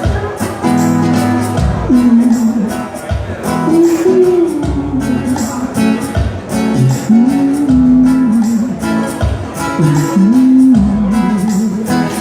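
Music: an acoustic guitar strummed in a steady rhythm of chords, with a wordless melody line that glides and wavers with vibrato above it from about two seconds in.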